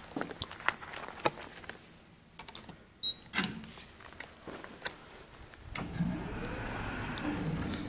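Scattered handling clicks and taps, a single short high beep from a card-key reader about three seconds in, then an automatic glass sliding door's motor running steadily for the last two seconds as the door moves.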